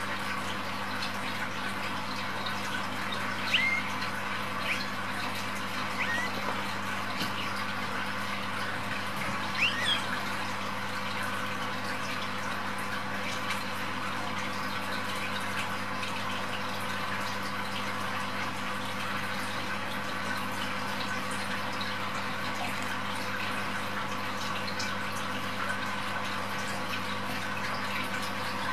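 A few short, high mews from young kittens in the first ten seconds, over a steady hiss and hum.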